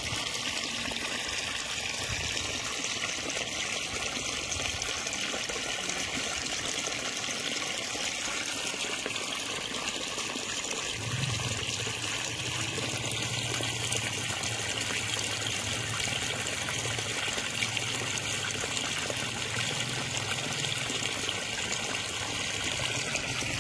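Water running steadily from a garden hose: a constant, unbroken rush.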